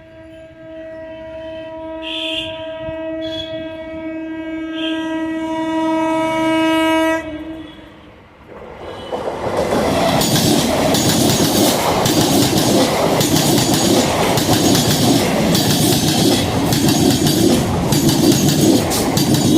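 Indian Railways train sounding one long horn blast that grows louder over about seven seconds and cuts off, then after a short lull passing close by with a loud, dense rattling and clatter of wheels over the rail joints.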